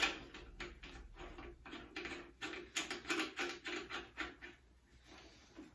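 Small clicks and rattles of a plasma cutter torch's air-line connector being fitted and tightened onto the machine's front panel by hand, a quick irregular run of clicks that stops near the end.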